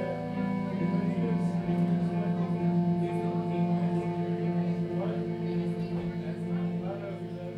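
Live rock band playing, with electric guitars holding long, steady notes over a fast repeated low note and little drumming.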